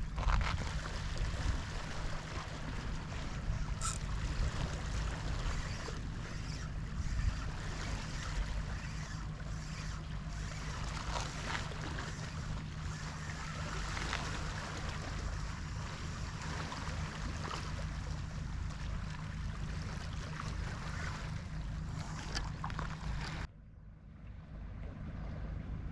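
Wind buffeting the microphone over waves washing on a rocky shore, with scattered small clicks. The sound drops off abruptly near the end.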